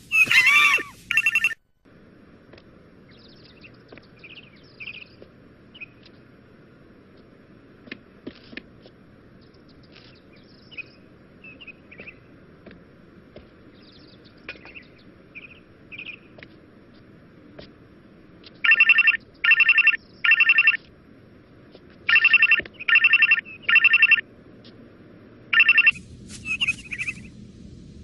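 Telephone ringtone ringing in short repeated bursts: four in quick succession, then four more, then one more near the end. Before the ringing there are only faint high chirps and squeaks over a low hiss, and a brief loud sound at the very start.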